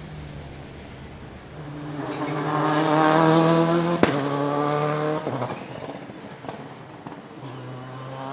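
Subaru Impreza S9 WRC's turbocharged flat-four engine revving up, its note swelling and rising slowly for about three seconds, with a single sharp crack about four seconds in. The engine then drops back to a low steady idle.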